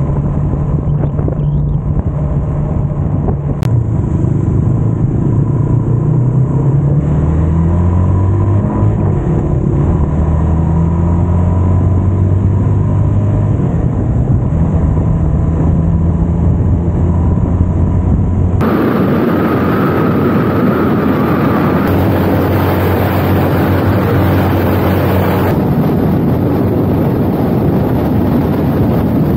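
Motorcycle engine running under way, its pitch holding and then stepping to new levels as the rider changes speed and gear, with wind rush on the microphone. About two-thirds of the way through, the sound switches abruptly to a heavier wind rush over the engine.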